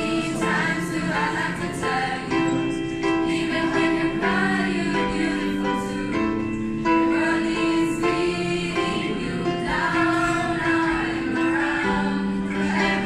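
A school choir of teenagers, mostly girls' voices, singing a song together, with long held notes.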